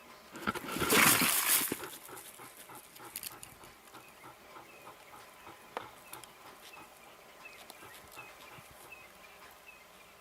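An animal's loud, rough, noisy burst lasting about a second, starting about half a second in, followed by scattered faint clicks and a faint high chirp repeating about twice a second.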